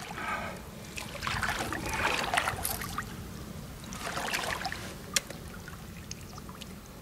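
Water splashing and dripping around a landing net as a freshly landed asp is lifted and handled in shallow water, in two spells about a second and about four seconds in. A single sharp click comes about five seconds in.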